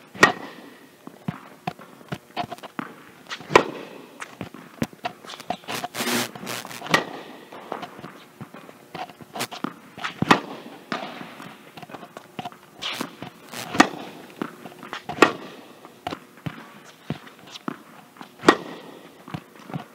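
Tennis racket striking the ball on slice backhands, about seven sharp hits roughly every three to four seconds, with quieter knocks of ball bounces and footsteps on the hard court between them.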